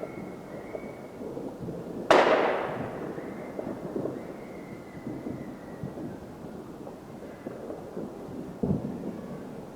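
New Year's Eve fireworks: one loud bang about two seconds in that rumbles away over about a second, over a scatter of smaller distant pops and crackles, with a duller thump near the end.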